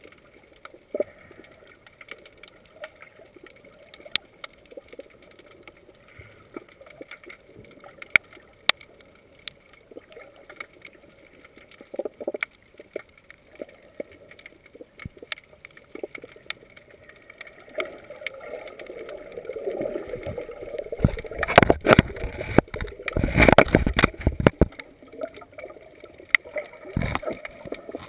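Water heard from underwater: sparse sharp clicks, then a churning rush that builds about two-thirds of the way in and peaks in a few seconds of loud turbulent surges before easing, as a swimmer in long fins moves close by.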